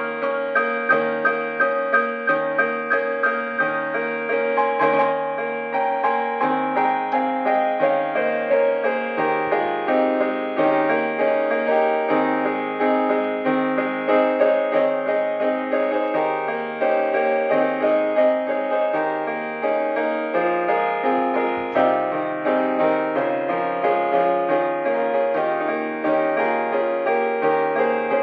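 Piano music: a flowing melody of struck notes over a low accompaniment that changes about once a second, played at an even pulse.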